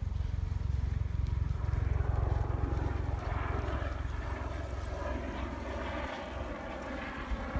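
Wind buffeting the microphone of a camera carried on a moving bicycle: a deep steady rumble that eases about six seconds in, with a steady hiss rising beneath it from about three seconds on.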